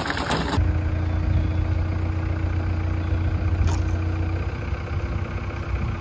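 Engine of the machine holding up the concrete tote idling steadily with a low hum, after a brief rough hiss in the first half second.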